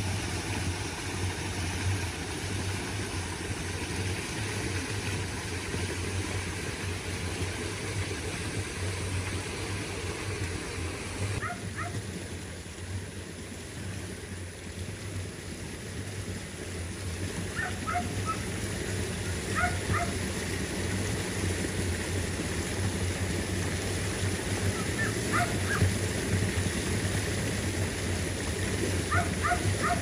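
Water rushing and churning along a small irrigation channel over a steady low engine hum. In the second half a dog barks a few times, short and faint.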